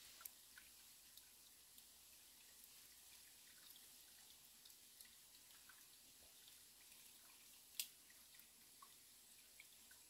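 Faint trickle and dripping of a shallow stream, with scattered small water ticks and one sharper click about three-quarters of the way through.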